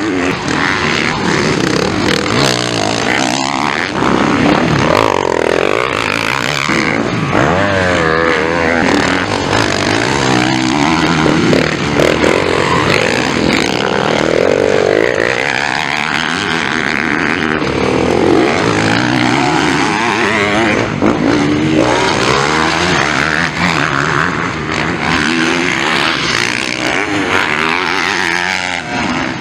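Motocross bike engines revving hard on the track, the pitch repeatedly rising and falling as the riders open and close the throttle.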